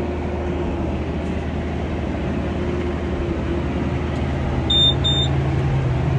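Massey Ferguson 5S tractor running steadily under load while pulling a large square baler, a continuous low engine drone with a steady humming tone above it. About five seconds in, two short high electronic beeps sound.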